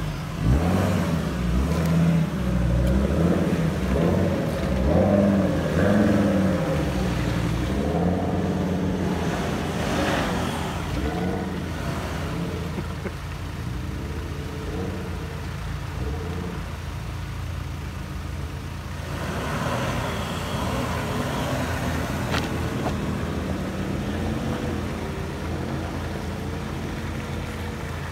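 Ford Ranger pickup truck engines crawling over a rough dirt off-road track. For the first eight seconds or so they rev with rising and falling pitch, then settle to a steadier low running drone.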